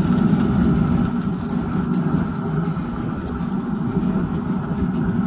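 Pit Boss Tailgater pellet grill running with its lid open: a steady low hum from its fan.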